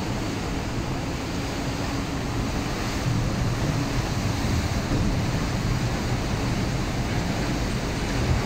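Churning water rushing along a moving ship's hull, a steady rush that grows a little louder about three seconds in.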